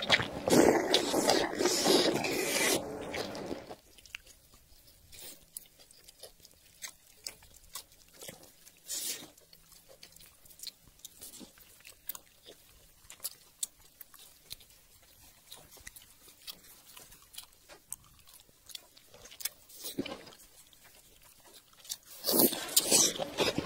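Close-miked eating sounds: loud wet biting and chewing of sauce-soaked braised meat for the first few seconds, then much quieter chewing with scattered soft clicks, and loud chewing again near the end.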